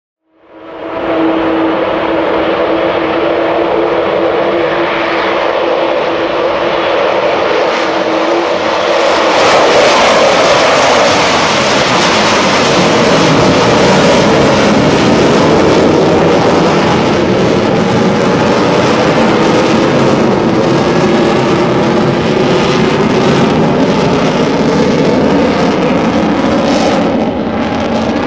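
Avro Vulcan jet bomber's four Bristol Olympus turbojets on a vintage take-off recording. For about the first eight seconds a steady whine sits over the jet noise, then the engine sound turns louder and fuller and holds to the end.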